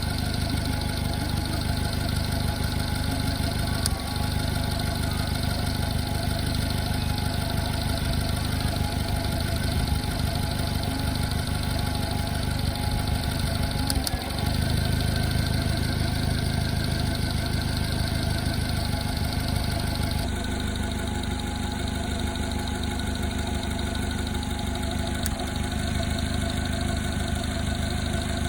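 2003 Subaru Dias Wagon's 660 cc four-cylinder engine running steadily, with an abnormal clicking tick coming from the engine whose cause the owner does not know.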